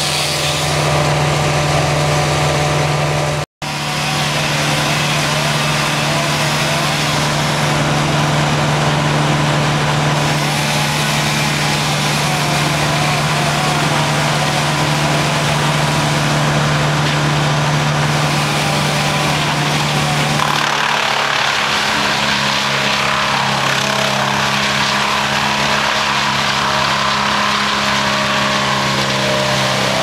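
Wood chipper's engine running steadily at high speed with a deep, even hum. The sound breaks off for an instant about three and a half seconds in, and about twenty seconds in the engine's pitch drops slightly and holds there.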